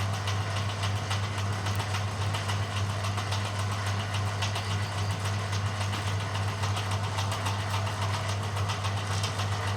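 Bamboo strip-thinning machine running steadily: a constant low motor hum with a fast, light, even rattle.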